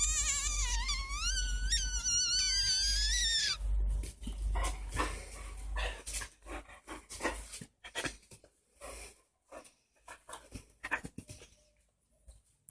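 Black Labrador puppy whining in a high, wavering tone for about three and a half seconds, followed by a run of short clicks and scuffles that die away near the end.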